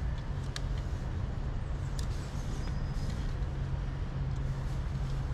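A steady low rumble, with a few faint clicks about half a second and two seconds in.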